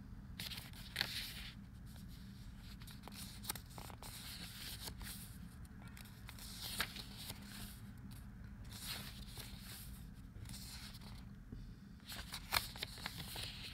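Pages of a small paperback guidebook being turned and leafed through by hand: soft, irregular paper rustles and flicks.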